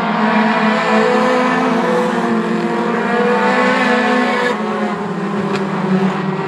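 A pack of four-cylinder Lightning 4 short-track race cars running at speed, several engines sounding together in a steady, overlapping drone.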